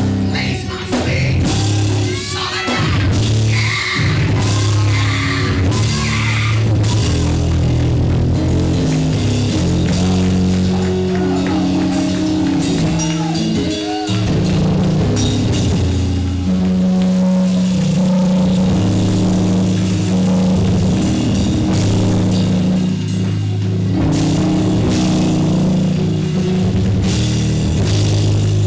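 Loud live band music with a drum kit and cymbals over held, stepping bass notes, typical of a church band playing after a sermon.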